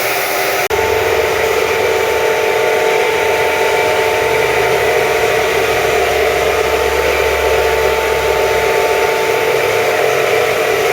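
Compressed-air paint spray gun hissing steadily while spraying clear coat, with a steady whir underneath. The sound drops out briefly less than a second in, then carries on unchanged.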